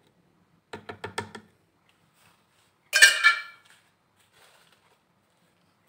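A metal spoon clinking against a glass jar as it stirs the chutney, a quick run of five or six taps, then one louder ringing metal clink about three seconds in.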